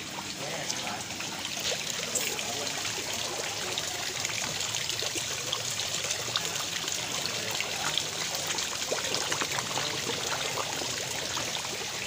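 Koi carp crowding and gulping at the pond surface, churning the water: continuous splashing dotted with many small splashes and slurps.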